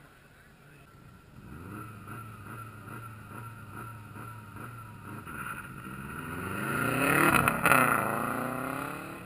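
Rally car engine approaching on a gravel stage, revving up through the gears again and again. It passes close by at speed about seven and a half seconds in, its pitch dropping as it goes away.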